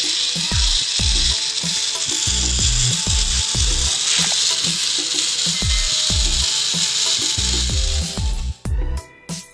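Small DC motor from an RC toy car, run off a single AA battery, spinning the toy bicycle's wheel and running steadily until it cuts off about eight and a half seconds in. Background music with a steady thumping bass beat plays underneath.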